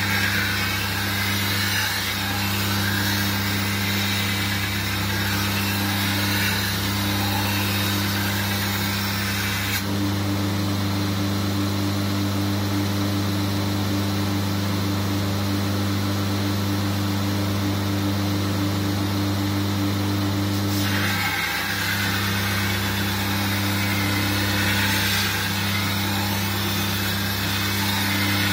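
Belt grinder grinding the edge of a steel shashka blade: a steady grinding hiss of steel on the abrasive belt over the machine's hum. About ten seconds in the grinding stops and only the motor runs on for about ten seconds, then the grinding starts again.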